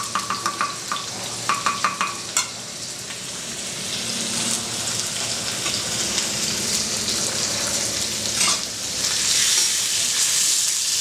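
Cubed chicken thigh and chorizo sizzling in hot olive oil in a steel paella pan, stirred with a spatula; the sizzle swells about four seconds in and grows louder again near the end. A few knife taps on a wooden chopping block come in the first couple of seconds.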